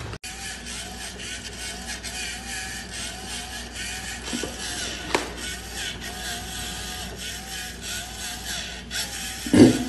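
Small motorized spinning toy running with a steady whir and a regular wobble about twice a second, broken by a few knocks, the loudest near the end.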